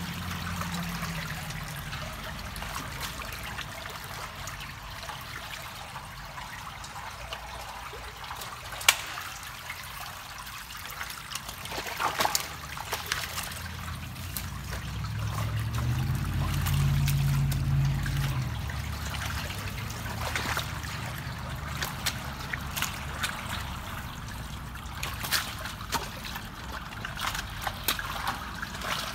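Water trickling and splashing at a culvert's mouth as gloved hands pull mud and sticks out of a beaver blockage, with scattered sharp clicks throughout. A low rumble swells for a couple of seconds around the middle.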